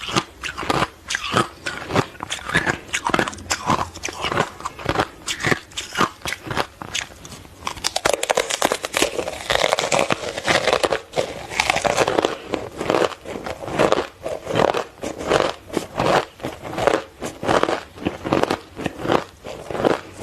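Hard ice coated with matcha powder being bitten and chewed: a steady run of crisp crunches, several a second, with a stretch of denser, continuous crunching about halfway through.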